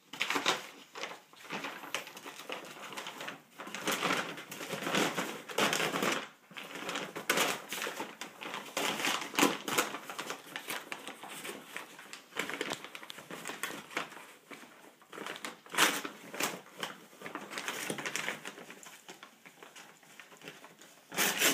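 Brown paper bag crackling and rustling in irregular bursts as a dog noses and paws into it and a kitten scuffles inside.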